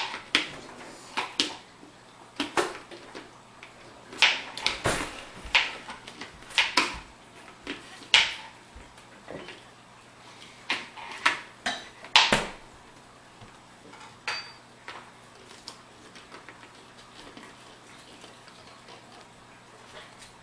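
Manual plunger food chopper being pressed down over and over: a run of sharp plastic clacks as the plunger and blade strike down into the bowl, irregular at about one to two a second, thinning out to a few faint ones after about thirteen seconds.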